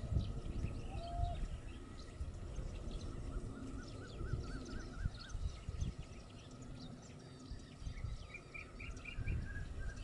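Several birds chirping and calling over a low background rumble, with a run of quick wavering notes around the middle and a short series of higher notes near the end.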